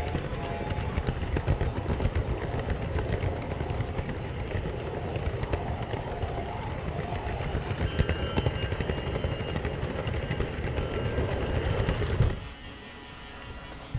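G-scale toy train rolling along plastic track, heard from on board, with a steady clatter of wheels over the rails. The clatter cuts off suddenly about twelve seconds in as the train stops.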